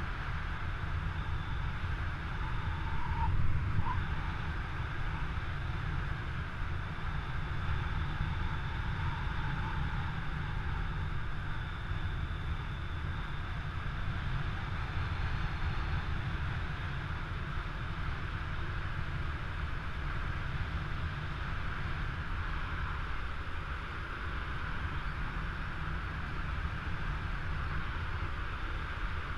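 Steady wind rushing over the microphone of a camera carried by a paraglider in flight: a deep rumble with a hiss above it, swelling briefly about three seconds in.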